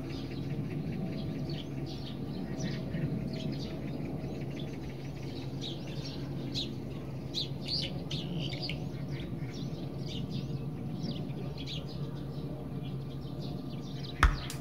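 Small birds chirping, many short high notes and quick falling calls repeating over a steady low hum. A loud sudden thump comes at the very end.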